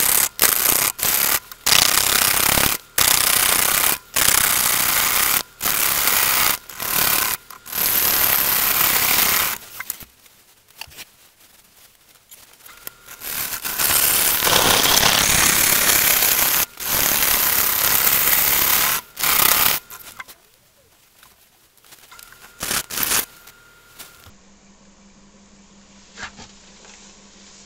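Turning tool cutting into a spinning green-wood blank on a wood lathe: loud, rough cutting noise in repeated short passes with brief breaks, stopping about ten seconds in, resuming about thirteen seconds in, and stopping again about twenty seconds in. Near the end only a faint steady low hum remains.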